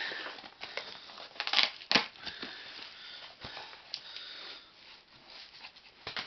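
Packing tape on a cardboard box being slit with a small knife and torn, with irregular scraping, ripping and crinkling of tape and cardboard; the sharpest rips come about one and a half to two seconds in.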